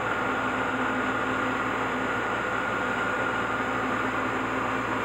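Steady hum and fan-like whir from a powered industrial machine and its control cabinet, with a faint constant tone over the noise.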